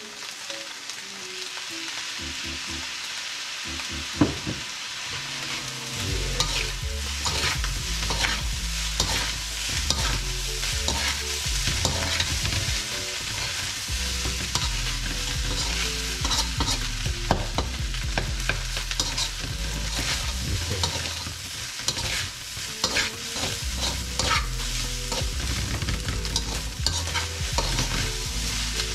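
Fried rice sizzling in a hot stainless steel skillet while a metal spoon stirs and scrapes it against the pan. There is a sharp clank about four seconds in, and the scraping gets busier from about six seconds on.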